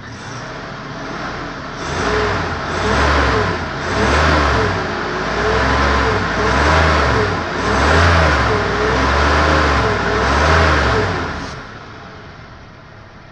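2015 Toyota Hilux's 2.7-litre four-cylinder petrol engine (2TR-FE), heard from inside the cab, idling in Park and then revved up and down repeatedly for about nine seconds. The revs climb and fall roughly once a second, then it settles back to idle near the end.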